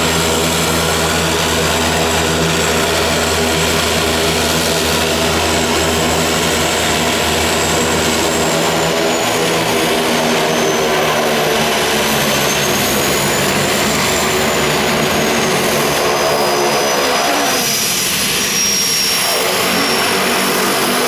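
De Havilland Canada DHC-6 Twin Otter floatplane's two turboprop engines running as it taxis on the water: a steady drone with a high turbine whine. Partway through, the deepest hum drops away and the whine rises and falls in pitch as the plane swings round.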